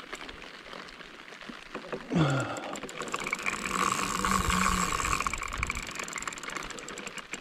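Fishing reel being wound against a heavy fish, a rapid run of fine ticks that swells for a few seconds in the middle.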